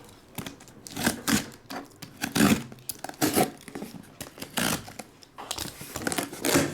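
Packaging on a sealed case of trading-card boxes being cut and torn open: a run of irregular short ripping and scraping strokes.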